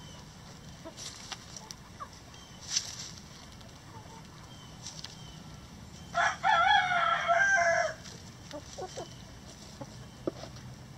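A rooster crows once, a single wavering crow about two seconds long starting about six seconds in. Around it, hens cluck softly now and then.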